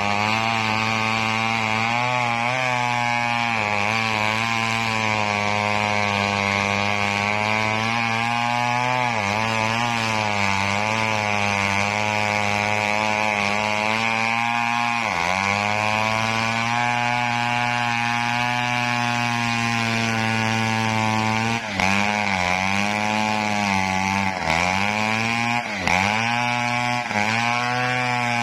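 Engine-driven wood saw running steadily while cutting coconut wood, its engine pitch dipping briefly several times as it takes load in the cut, most often in the second half.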